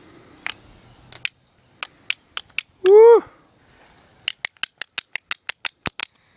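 Sharp clicks, scattered at first, then a quick, even run of about seven a second in the last two seconds. A shout of 'woo' comes about three seconds in.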